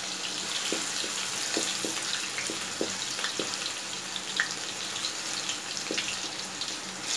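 Chopped garlic sizzling and crackling in hot oil in an aluminium karahi, with a wooden spoon knocking against the pan several times in the first half.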